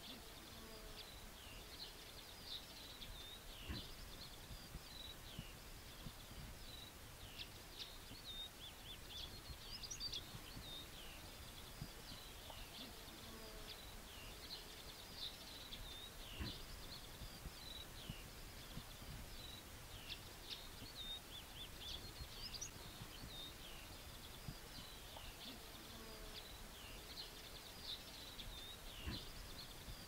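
Continuous high-pitched songbird song, a steady stream of quick chirps and trills, over a faint outdoor background; the same stretch seems to come round again about every twelve seconds.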